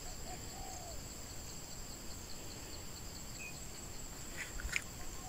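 Insects chirring steadily at a high pitch over a low rumble, with a few faint ticks near the end.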